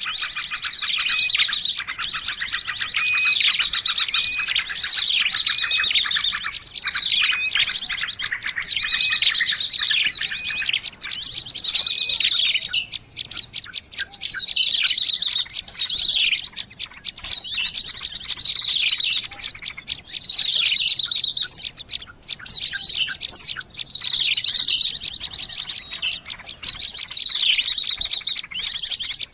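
Small songbirds chirping and trilling continuously in a dense overlapping chorus of rapid high notes and repeated short downward-sliding calls, the kind of recording played as a lure call to attract small birds.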